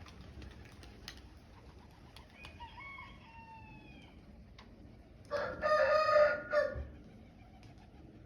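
A rooster crows once, loudly, about five seconds in, for about a second and a half. A fainter, drawn-out call with a gliding pitch comes a couple of seconds before it.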